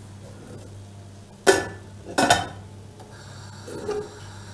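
Stainless steel cooking pot set down on the metal grate of a gas hob: two sharp clanks about a second apart, then a softer knock near the end.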